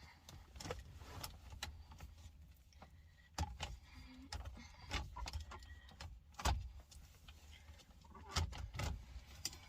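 Irregular clicks, knocks and rustling from hands and a tool working at a tight shift knob inside a car, with a few sharper knocks spread through.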